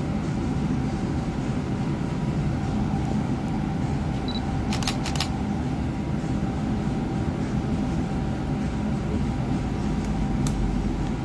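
Cabin noise inside a Bustech ZDI battery-electric bus: a steady low rumble and hum with two faint steady tones. A quick run of clicks comes about halfway through, and a single click near the end.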